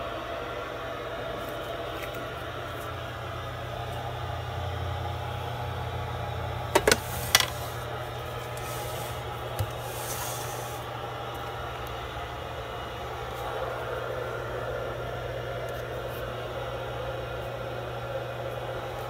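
Steady whir and hum of the cooling fans in a power supply built from eight Mean Well SE-350-15 switch-mode modules, with three sharp clicks about seven seconds in.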